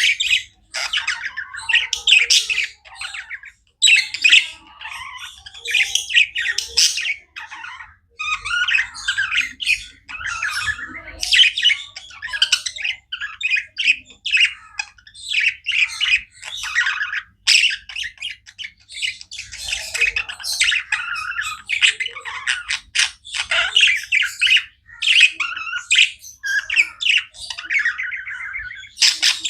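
Budgerigars chattering and chirping continuously, a dense run of warbling chirps and squawks with brief pauses.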